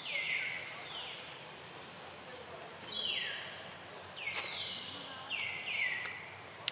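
A series of short, high-pitched animal calls, each sliding downward and levelling off, about seven of them coming in irregular groups. A sharp click sounds at the very end.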